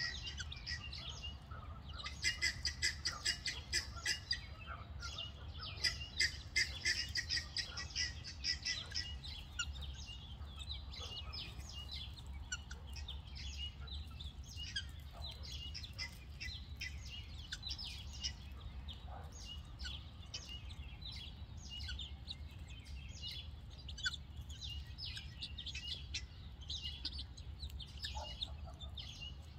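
Helmeted guinea fowl and keets calling: two bouts of rapid, sharp chattering calls, a couple of seconds in and again from about six to nine seconds, then scattered softer high peeps. A steady low hum runs underneath.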